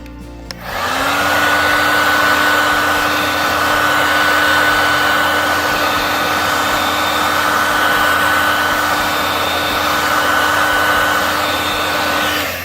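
Electric heat gun switched on and blowing steadily, with a whine that rises to pitch as the fan spins up and then holds, before it cuts off near the end. It is heating a sticker on the bike frame to soften the adhesive so the sticker can be peeled away.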